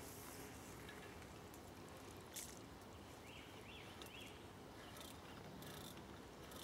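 Quiet riverbank ambience: a faint steady hiss, a few soft clicks, and three short high chirps in quick succession near the middle.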